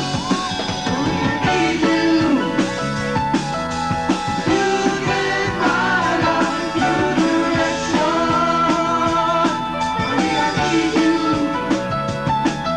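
Live rock band performance: a male lead singer singing over the band, with drums keeping a steady beat.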